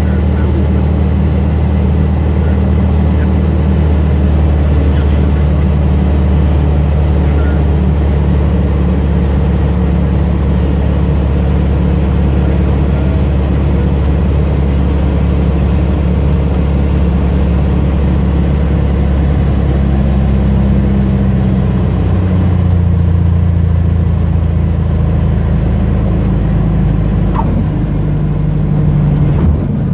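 Light aircraft's piston engine and propeller droning steadily, heard from inside the cockpit along with airflow noise, while landing. The engine note shifts about three-quarters of the way through.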